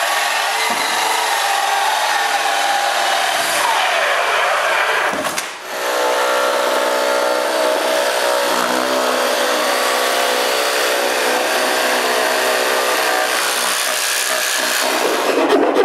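A cordless drill spinning a hole saw through a pine board for about five seconds. After a brief pause, a Festool Carvex cordless jigsaw runs steadily for about ten seconds, cutting out the rest of the opening.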